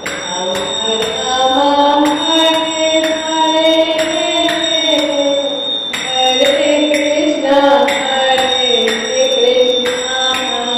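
Hare Krishna devotional bhajan music: a gliding melody held on long notes over a steady ticking beat of about two a second.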